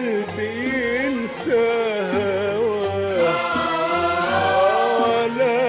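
Classical Arabic music from a live orchestral performance: an ornamented melody line sliding and turning over a low, pulsing accompaniment.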